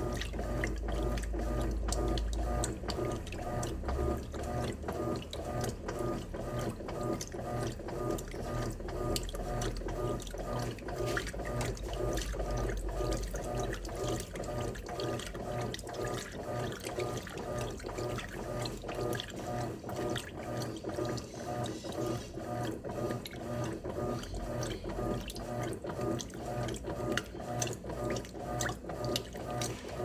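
Electrolux 8.5 kg top-loading washing machine running its wash cycle, water sloshing in the tub in a steady, repeating rhythm as the agitator works back and forth.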